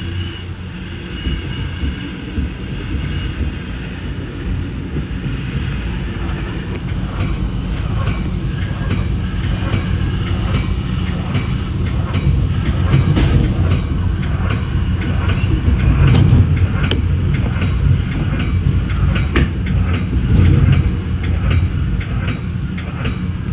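Metra bi-level commuter car rolling over the rails, heard from inside the front car: a steady low rumble with the wheels clicking over rail joints and switches. The clicks come thicker and louder in the second half.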